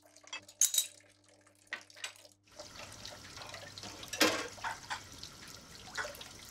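A few light clinks of crockery, then a kitchen sink tap turned on about two and a half seconds in, running steadily while hands wash under it, with a couple of knocks of dishes in the sink.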